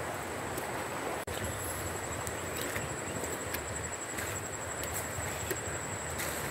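Steady rushing of a flood-swollen river, with a thin high steady whine over it and a few faint clicks. The sound drops out for an instant about a second in.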